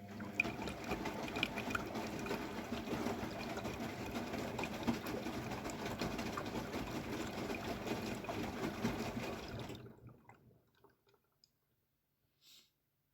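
AEG Lavamat W 1450 washing machine letting water in: a steady rush of water into the drum through the inlet valve, cutting off about ten seconds in, followed by a few faint clicks.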